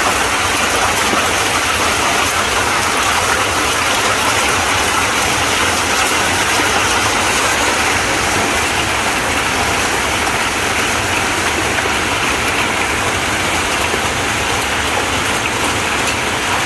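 Hailstorm with heavy rain: hailstones and rain falling steadily, a dense, even hiss with no letup.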